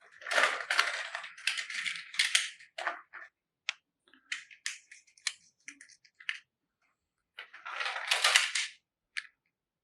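Plastic toy vehicles rattling and clicking as they are handled and unloaded from a toy carrier truck. There is a dense clatter at the start, scattered clicks, and another burst of rattling about eight seconds in.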